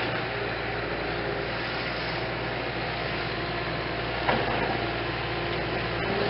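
Steady mechanical hum in the background, with a single sharp knock a little over four seconds in.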